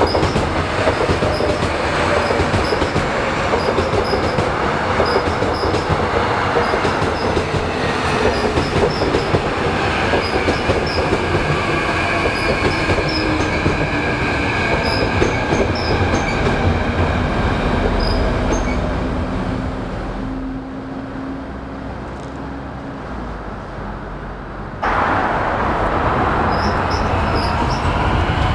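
Seoul Subway Line 2 electric train pulling into the station, its motor whine falling in pitch as it slows, with wheel squeal and rail rumble, until it is nearly stopped. Near the end the sound jumps up abruptly to a train pulling away, its whine rising in pitch.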